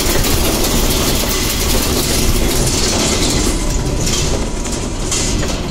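Steady engine and road noise inside the cabin of a vehicle driving along. The hiss eases a little about halfway through.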